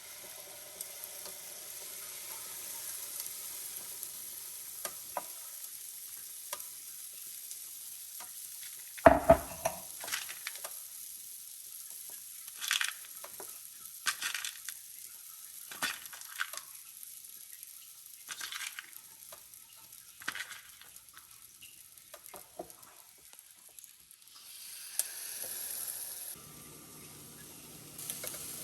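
Food sizzling in a frying pan, a steady high hiss, with scattered clinks and knocks of kitchen utensils and cookware. There is a heavy knock about nine seconds in.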